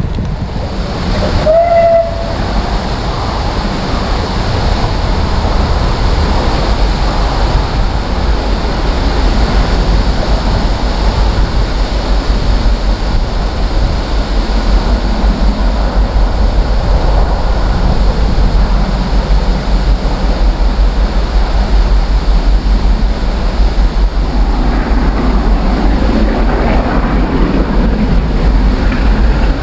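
Steam locomotive SR 35018, a Bulleid Merchant Navy class Pacific, working a train past, with a short whistle about two seconds in. The running grows louder and rougher near the end as the train comes by. Strong wind buffets the microphone with a steady low rumble.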